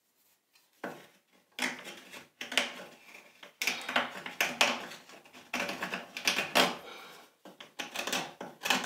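French-curve card scraper drawn in short strokes across the inside of a wooden spoon's bowl: a quick run of rasping scrapes with brief pauses, starting about a second in. It is the final smoothing of the carved bowl.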